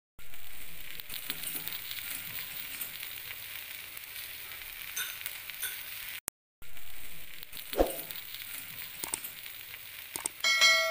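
Split fish grilling on a flat black pan, sizzling steadily with many small pops; the sound cuts out for a moment about six seconds in. Near the end a bright bell-like chime rings out.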